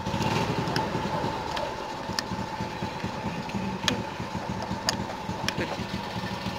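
A small engine idling steadily, with a few sharp clicks scattered through it.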